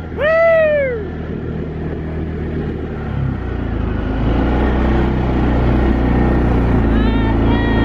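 A man's loud whoop about half a second in, over a quad bike's engine running as it tows a toboggan through the snow. The engine picks up about three to four seconds in, and another shout comes near the end.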